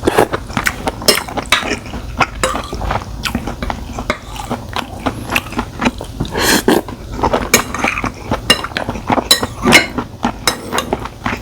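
Close-miked chewing of a mouthful of spicy stir-fried webfoot octopus, with many sharp, wet mouth clicks and smacks coming irregularly, several a second.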